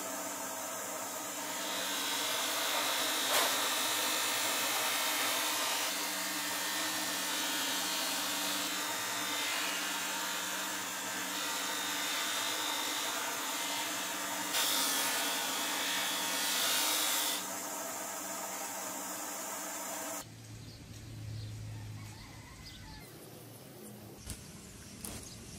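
A power tool running steadily with a gritty, hissing working noise. About fifteen seconds in it grows louder and hissier for roughly three seconds, then settles. About twenty seconds in it cuts off abruptly to a quieter, different sound.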